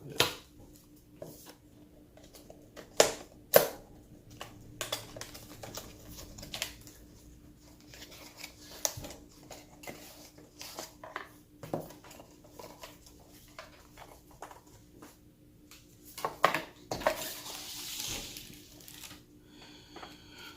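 Packaging and its contents being handled during an unboxing: irregular clicks, taps and knocks, with a longer rustle about three quarters of the way through. A faint steady hum runs underneath.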